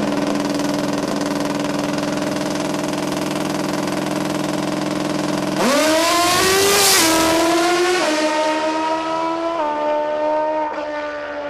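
Pro Extreme drag-racing motorcycle engine running steadily on the starting line, then launching hard at full throttle about five seconds in. The pitch climbs sharply and steps several times as the bike shifts up through its gears while it pulls away down the strip.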